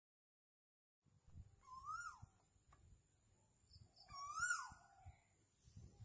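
An animal call that slides up and then down, given twice about two and a half seconds apart, after a second of dead silence. A steady high hiss runs under it.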